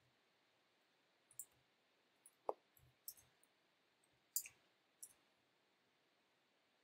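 Faint, sparse computer keyboard clicks, about half a dozen short taps spread over a few seconds, over near silence.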